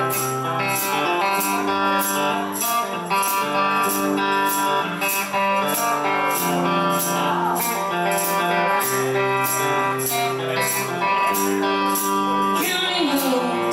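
Country-rock band playing an instrumental passage: guitars holding chords over a steady tambourine beat of about two hits a second.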